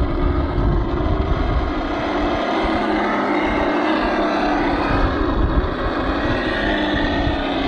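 Simulated V8 engine sound from an ESS-One sound module in a radio-controlled Axial SCX10 scale crawler, running steadily, with a slight drop in pitch near the end.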